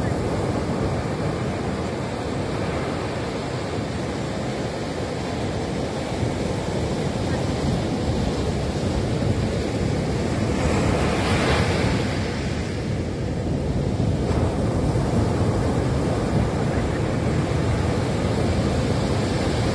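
Ocean surf breaking on a sand beach: a steady rumble and wash of waves, with one breaker crashing louder and hissier about eleven seconds in.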